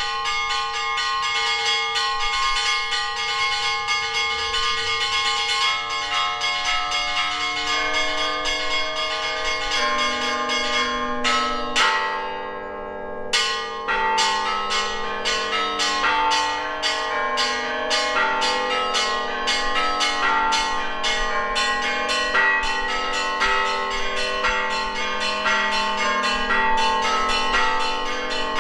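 Russian Orthodox church bells ringing in a peal, several bells of different pitches struck in quick rhythmic succession. The ringing dips briefly about twelve seconds in, then starts again with a sharp strike.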